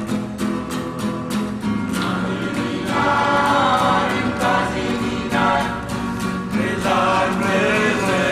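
Music: a group of voices singing together over a quick, steady beat. The beat stands out at first, and the voices come in strongly about three seconds in.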